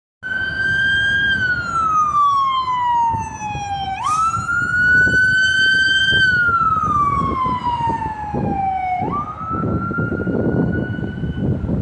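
Emergency vehicle siren wailing. Its pitch jumps up, holds briefly, then slides slowly down, three times over, with a low rumble of traffic underneath.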